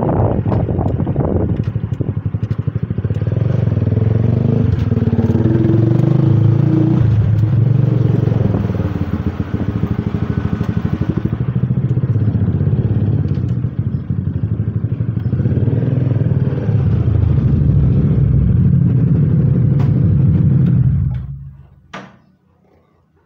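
Honda CBR150R's single-cylinder four-stroke engine running while the motorcycle is ridden, its pitch rising and falling with engine speed. The engine cuts off near the end, followed by a single short click.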